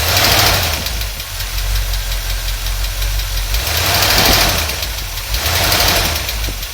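Chevy small-block 350 V8 running and being revved in swells, with a fast light ticking riding on it, which the owner suspects comes from a bad lifter or a leaking exhaust manifold gasket at the rear of the engine.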